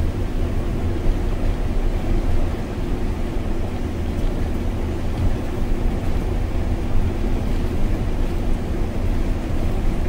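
MAN Lion's City city bus running on its biogas engine while driving, heard from the driver's seat: a steady low drone with a faint steady hum over it, mixed with road noise.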